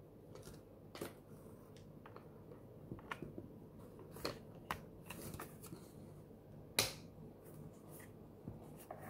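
Plastic casing of a ZKTeco LX50 fingerprint attendance terminal handled and turned over in the hands, giving faint scattered clicks and taps, the loudest about two-thirds of the way through.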